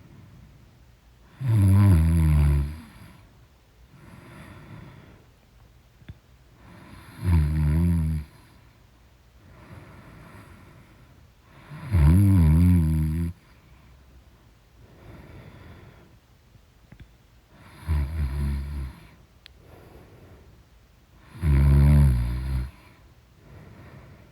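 A woman snoring loudly in her sleep: five heavy snores about five seconds apart, each lasting about a second, with quieter breaths between them.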